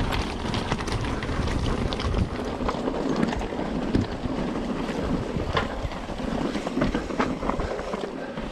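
Wind rushing over the microphone of a mountain bike in motion, with frequent sharp clicks and rattles from the bike over rough trail.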